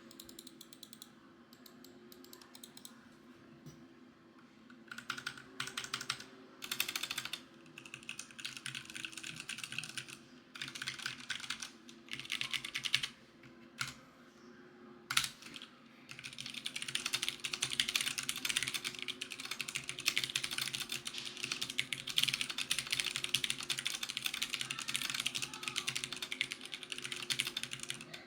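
Ducky One 2 full-size mechanical keyboard with unlubed Cherry MX Brown switches being typed on. A few scattered keystrokes give way to short bursts of typing, then one loud single key clack, then continuous fast typing through the second half.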